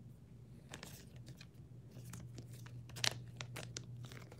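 Faint rustling, crinkling and light clicks of trading cards and plastic sleeves being handled, with one sharper click about three seconds in, over a steady low hum.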